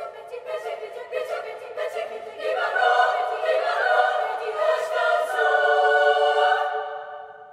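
Girls' choir singing. Voices hold a quieter note over crisp rhythmic consonants, then swell about two and a half seconds in into a loud, full, sustained chord that dies away near the end.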